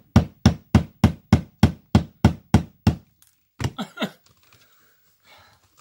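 Hammer driving a thin nail into a wooden floor: a fast run of about eleven sharp strikes, roughly three a second, then two more after a short pause. The nail is not going in, which he puts down to a bad nail.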